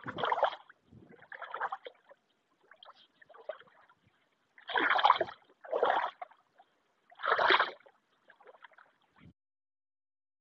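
Footsteps wading through shallow water, a splash and slosh with each step, roughly one a second, some steps louder than others.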